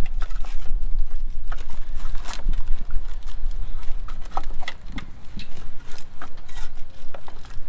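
Irregular clicks and knocks of plastic and metal parts being handled while a headlight assembly is fitted into its housing, over a low rumble that is strongest in the first second or so.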